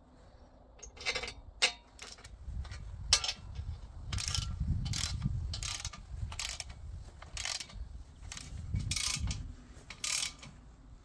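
Ratchet wrench clicking in repeated strokes, about one a second, as bolts are tightened into a steel frame. A few sharp metal clicks of bolts and washers being fitted come first.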